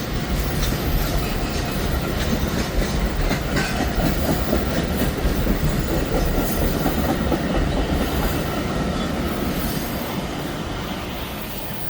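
Metra commuter train rolling along the rails at the platform, wheels clicking over rail joints under a steady low rumble, fading away toward the end.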